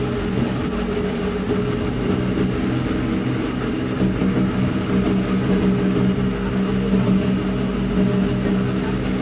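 Ferry's engine running steadily: a constant low hum with a steady rushing noise over it.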